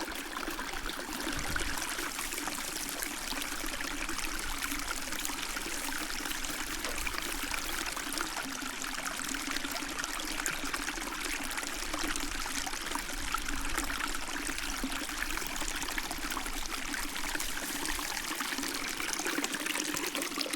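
Small seasonal stream running steadily with spring flow, a continuous rush and trickle of water.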